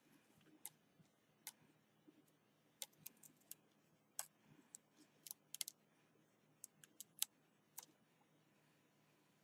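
Faint, irregular small clicks and light taps, around a dozen or more, from hands and tools handling the phone's parts while fitting adhesive tape around the screen.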